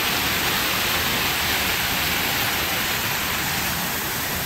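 Artificial waterfall: pumped water pouring down several falls over a rock face into a pool, a steady rushing.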